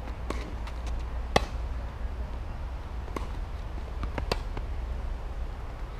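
Tennis rally: rackets striking the ball with sharp pops, loudest about a second and a half in and again near four and a half seconds, with fainter hits from the far end of the court and ball bounces between.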